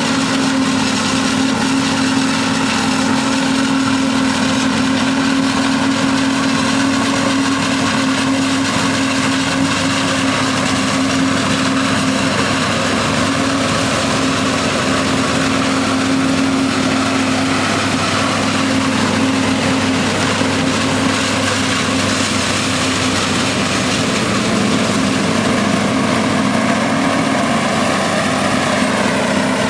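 Heavy diesel farm machinery at a maize silage harvest, chiefly a forage harvester and tractors, running steadily and loudly under load, with a slight shift in engine pitch near the end.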